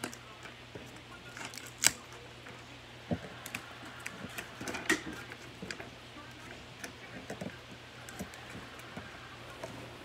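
Posters and pictures being handled and pulled down from a bedroom wall: scattered light clicks, taps and rustles, the sharpest click about two seconds in, over a faint steady hum.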